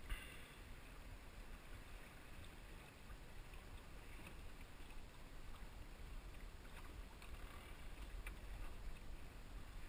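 Water swishing and lapping against the hull of a small sailing dinghy under way, with a low rumble of wind on the microphone. A sharp click right at the start and a few faint clicks later, from the boat's fittings and lines.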